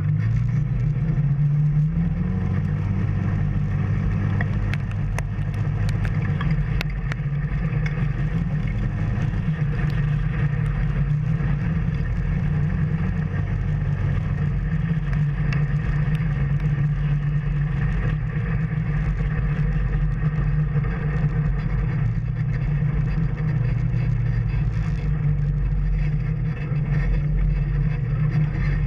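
Off-road vehicle engine running while driven along a trail, its pitch rising and falling a few times with the throttle.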